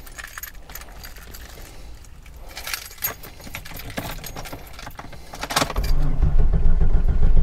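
Keys jingling in the ignition of a 1996 Jeep Grand Cherokee ZJ, then about six seconds in the engine cranks over with a loud, rough low rumble. It is a test start of a Jeep that has been stalling from fuel starvation, made after the fuel pump relay was replaced.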